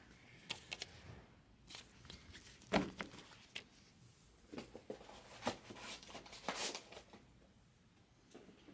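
Scattered light knocks, clicks and rustles of things being handled and set down on a tabletop, with the sharpest knock about three seconds in.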